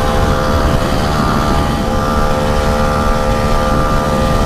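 The 49cc engine of a Motoped motorized bicycle running steadily at cruising speed, its pitch holding level, with wind rumbling over the microphone.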